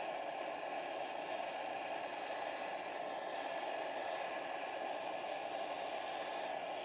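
Soldering torch flame burning with a steady hiss, heating a copper pipe coupling before the joint is soldered.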